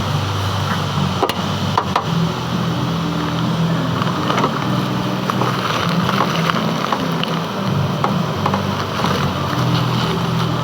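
Metal lathe running steadily, turning a gland, with a low hum and scattered short clicks.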